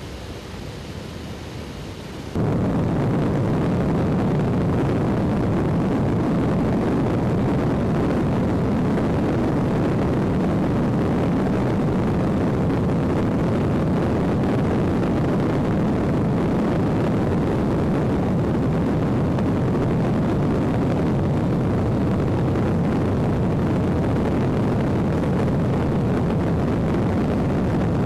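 Steady engine and airflow noise of an airplane heard from on board, jumping suddenly louder about two seconds in and then holding level.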